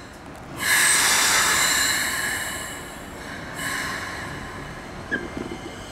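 Keikyu Main Line train running through the station: a loud rush of wheel and running noise comes in suddenly about half a second in, carrying several steady high-pitched tones. It eases off, then swells again about three and a half seconds in.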